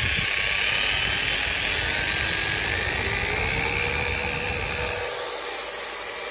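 Maktec corded 220 V electric drill with a 6 mm chuck running free, its motor whine rising in pitch as the variable-speed trigger is squeezed up to full speed, holding steady, then starting to slow near the end.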